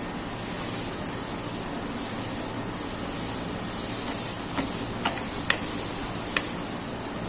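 Steady hissing background noise, with four sharp taps in the second half, a little under a second apart.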